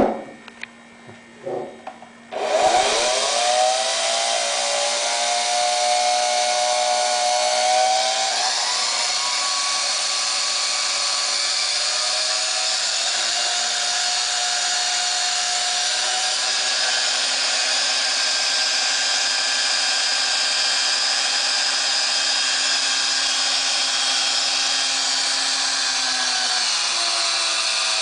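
Walita Jubileu electric stand mixer: a few clicks, then its motor starts about two seconds in with a rising whine and runs steadily, its beaters spinning in an empty glass bowl. The whine steps up in pitch about eight seconds in and holds steady, shifting slightly again near the end.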